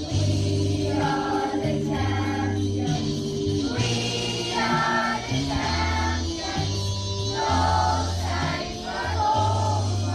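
Music: a song with choir singing over an instrumental backing with a bass line that moves note by note about once a second.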